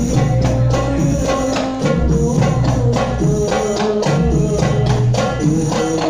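Music led by hand percussion: tambourine-like jingles over deep drum beats in a steady rhythm, with a held melody line.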